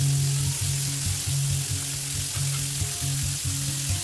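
Pork chops frying in oil in an enameled cast iron skillet: a steady sizzle. Background music with a steady low beat plays underneath.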